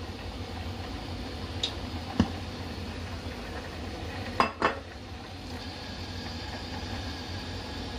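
A frying pan and cookware on a glass-top hob knocking and clinking a few times: a sharp knock a couple of seconds in, then two quick clinks a little later, over a steady low hum.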